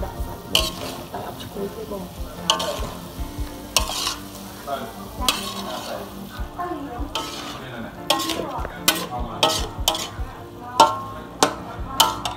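Stir-frying in a wok: a metal spatula scrapes and clacks against the pan while vegetables and seafood sizzle. The strokes come about once a second, then quicker in the last few seconds.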